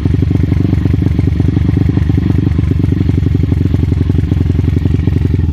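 Yamaha Byson's single-cylinder air-cooled engine, bored up with a Scorpio piston, running steadily through a DBS aftermarket exhaust, with an even, rapid pulse of exhaust beats.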